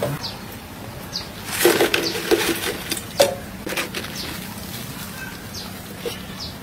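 Birds chirping in short calls, with a brief lower call about two seconds in, mixed with a few short crackles and clicks.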